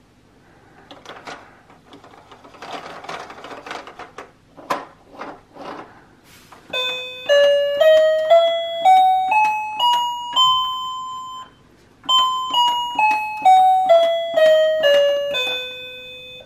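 Electronic toy piano tones: eight notes played one by one up a scale, the top note held, then after a short pause eight notes back down. Before that, several seconds of a noisy recorded animal-sound effect from one of the toy's animal buttons.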